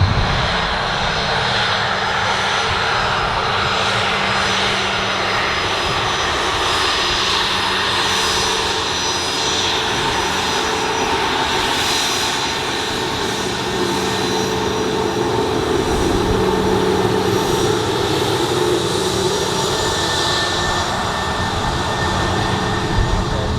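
Bombardier Challenger 604 business jet's two General Electric CF34 turbofan engines running steadily: a constant jet whine over a low hum.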